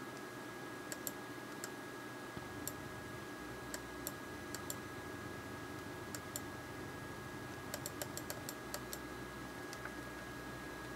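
Faint, irregular clicks at a computer, mostly single ones with a quick run of several about eight seconds in, over a steady high-pitched whine and hiss.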